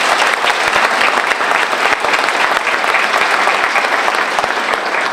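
An audience applauding: many hands clapping, loud and steady.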